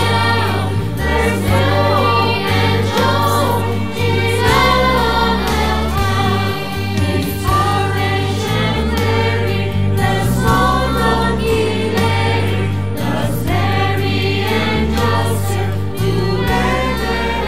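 Mixed church choir singing a Christmas anthem, several voices together over held low accompaniment notes that change in steps.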